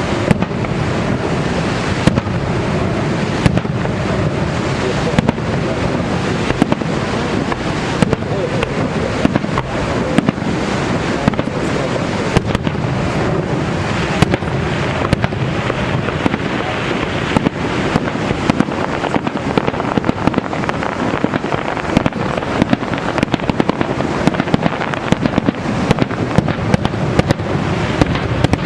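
Fireworks bursting over Niagara Falls: sharp bangs and cracks, a second or more apart at first, then coming thick and fast in the second half, over the steady rushing roar of the falls.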